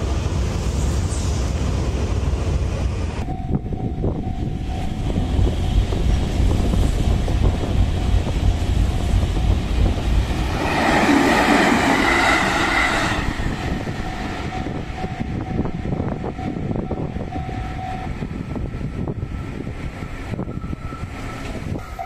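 Train running past a railway level crossing, with a steady low rumble that changes abruptly about three seconds in. The crossing's warning bell then rings as a steady tone, and the train is loudest for a couple of seconds around halfway.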